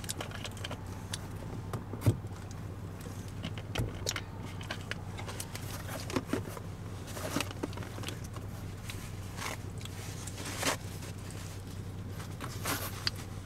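Steady low hum of a car idling inside the cabin, with scattered clicks, knocks and rustles of small objects being handled. Near the end, a bite into a crusty pizza slice.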